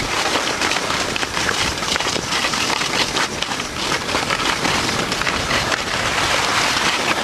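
Steady rushing wind noise on the microphone mixed with skis scraping over snow, heard while being towed uphill at speed on a surface tow lift.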